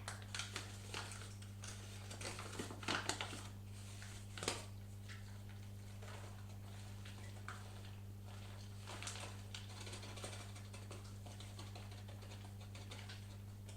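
Light taps, clicks and rustles of hands and utensils working in a kitchen, busiest in the first five seconds and sparser after, over a steady low hum.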